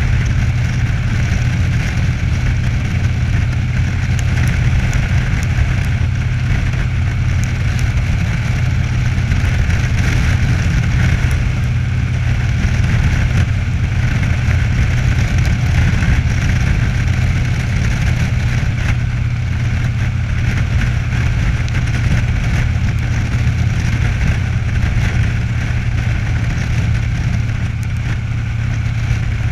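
Cruiser motorcycle engine running steadily at cruising speed, with a constant low drone and rushing wind and road noise over it.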